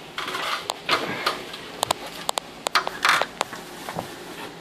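Irregular sharp clicks and knocks with short scrapes and rustling: handling and movement around a stepladder and drop-ceiling grid.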